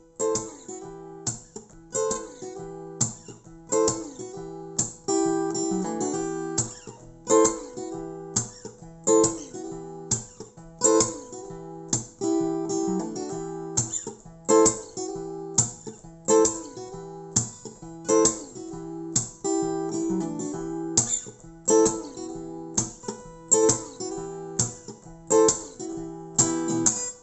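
Acoustic guitar with a capo, played solo as an instrumental intro: a repeating pattern of plucked notes with a strong accented pluck about every two seconds.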